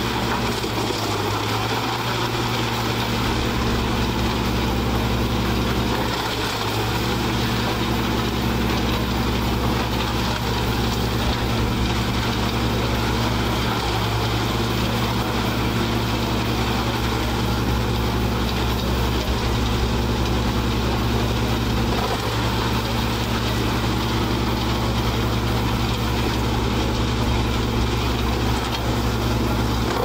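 Truck-mounted NOREMAT wood chipper running steadily under load as its crane grapple feeds whole logs into the infeed: a heavy engine drone over the din of the chipping, the engine note dipping briefly and recovering a few times.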